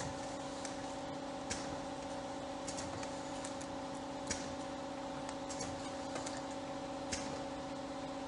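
Powder-filling packing line running, with its can conveyor and labeling machine making a steady multi-tone hum. Irregular sharp clicks sound over it, about once every second or so.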